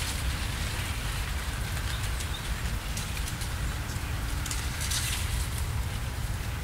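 Wind rustling and crackling through dry plants, with the low rumble of wind buffeting the microphone. A few faint, high chirps sound briefly.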